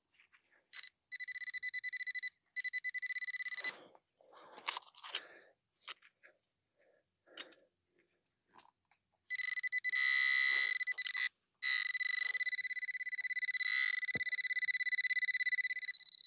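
Handheld metal-detecting pinpointer (Quest Xpointer Max) sounding a high, fast-pulsing beep as it is held to a soil plug: two short spells near the start, then a long run near the end, signalling a metal target in the plug. Short crunches and scrapes of soil being broken apart come between the beeps.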